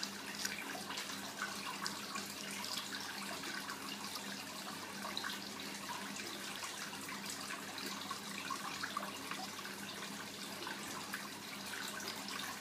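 Steady trickling of running water, a continuous crackly patter with a faint low hum underneath.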